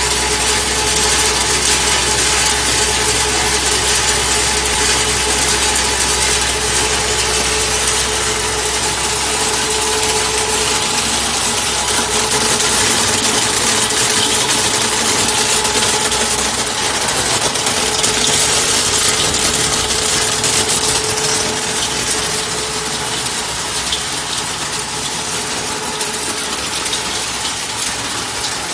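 Koyue belt color sorter running: a steady mechanical hum with a constant tone under a dense hiss and rapid crackle of its air-jet ejectors firing and kernels pattering off the belt. A low rumble underneath fades out about twelve seconds in.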